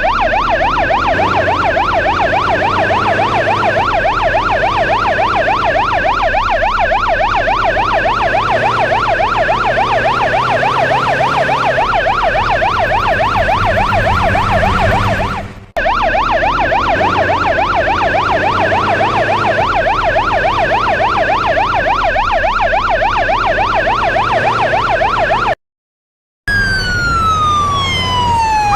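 A truck's 'telolet basuri' electronic horn sounding a rapid warbling siren tone over a low engine rumble. It breaks off briefly partway through, and after a short cut near the end it switches to one long falling wail.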